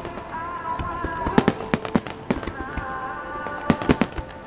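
Aerial firework shells bursting in a finale barrage: irregular sharp bangs, with a cluster about a second and a half in and another near the end. Music plays underneath the whole time.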